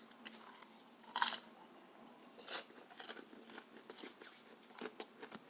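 Someone eating popcorn: a crunchy bite about a second in and another in the middle, with small crunches and clicks of chewing between.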